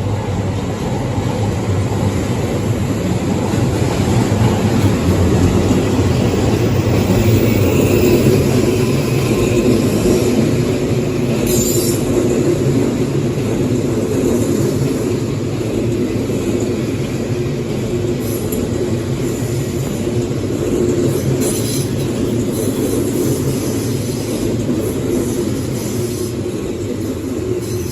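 Odakyu 5000-series electric train passing close by with a steady rumble of wheels on rail. A few short high clicks come about halfway through.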